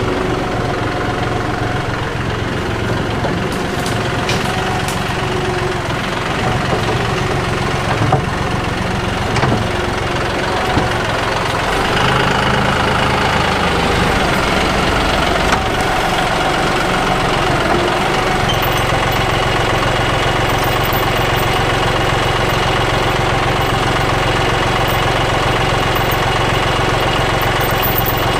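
John Deere 5055E tractor's diesel engine running steadily under work, its note shifting a couple of times, with a few short knocks partway through.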